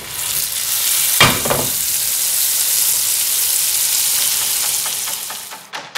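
Meat sizzling loudly over a grill fire as the flames flare up, with a sudden heavier whoosh about a second in. The hiss fades out near the end.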